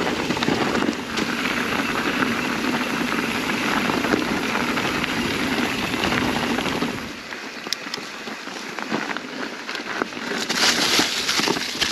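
Mountain bike rolling downhill over a rocky, leaf-covered trail: tyres crunching and crackling over dry leaves and stones, with the bike rattling. A low rumble drops away about seven seconds in, leaving lighter crackling.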